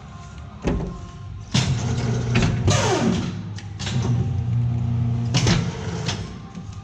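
MBM Triumph 6550 electric guillotine paper cutter running a power clamp and cut cycle: a sharp knock, then the drive motor hums from about a second and a half in, with several clunks from the clamp and knife and a falling whine around three seconds in. The hum stops at about five and a half seconds.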